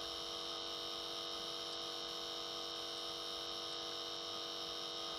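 A steady electrical hum with a high whine over it, unchanging in pitch and level.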